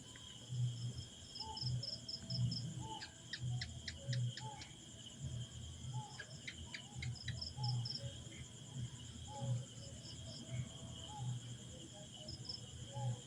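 Insects chirring steadily in the background, with repeated short high chirps. Two quick runs of sharp clicks come about three and six seconds in.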